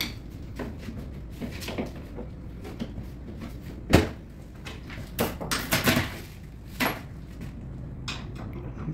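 Sharp plastic knocks and clicks as a Fronius Eco solar inverter's housing and cable connectors are handled. One loud knock comes about four seconds in, then a quick run of clicks a second later, and one more shortly after.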